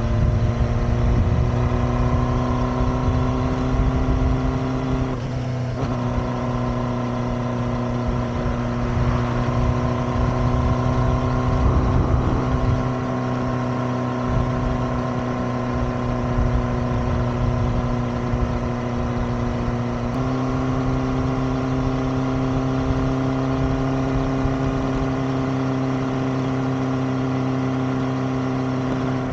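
Honda CB400 Super Four's inline-four engine running at steady cruising revs under way. The note breaks briefly about five and a half seconds in and steps up slightly in pitch about twenty seconds in.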